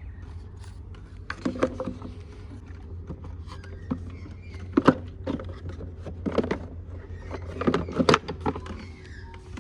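Small carburettor parts being handled and fitted back together: a few scattered clicks and knocks, the loudest about halfway and a quick cluster near the end, over a steady low hum.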